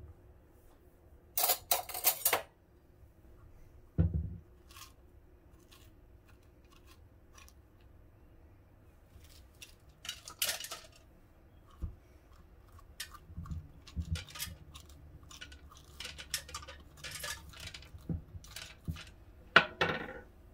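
Metal spoon scraping seeds and pulp out of a halved squash and knocking against a wooden cutting board, in scattered short scrapes and clinks.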